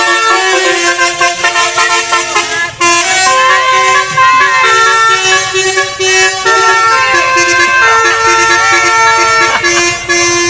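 Tour bus's Basuri telolet horn playing a tune. Loud, held horn notes step from pitch to pitch, with a short break about three seconds in.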